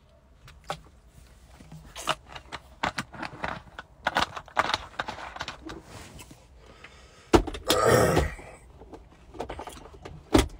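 Plastic water bottle crackling and clicking as it is handled and drunk from, with a louder rustling rush lasting about a second around seven seconds in.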